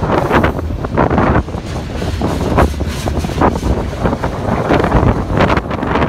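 Wind buffeting the microphone in irregular gusts, over the steady running noise of freight cars rolling past on the rails.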